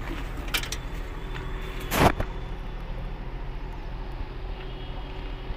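A Maruti Swift Dzire's boot lid being opened: a couple of light clicks, then a loud thump about two seconds in, over a steady low hum.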